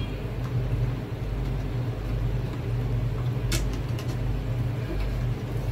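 A steady low hum, with a sharp click of small plastic aquarium-filter parts being handled about three and a half seconds in and a couple of faint ticks just after.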